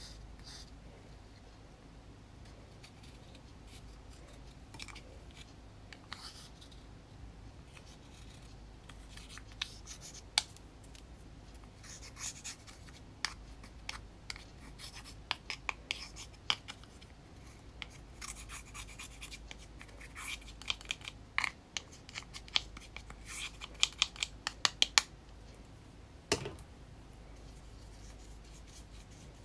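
Pressed makeup powder being scraped and crumbled out of its plastic compact with a plastic tool: irregular scratchy scrapes and sharp plastic clicks, sparse at first and busiest in the second half.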